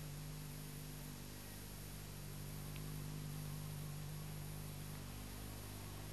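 Steady low hum with an even hiss, the background noise of an old, deteriorated tape sound track, with no other sound.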